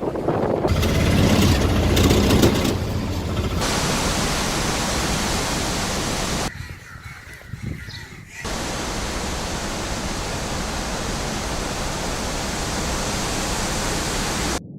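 Outdoor ambient noise, a steady hiss without clear tones, that changes abruptly several times and drops out suddenly near the end.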